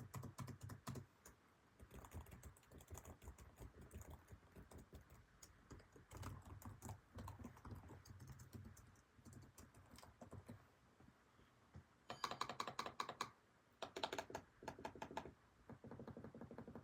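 Lenovo ThinkPad 5i laptop keyboard being typed on: uneven clatter of key clicks, then a short pause and two louder runs of fast keystrokes about twelve and fourteen seconds in.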